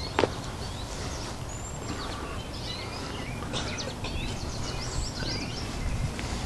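Outdoor ambience: birds chirping and calling, with short high whistled notes scattered throughout, over a steady low background rumble. A single sharp click sounds just after the start.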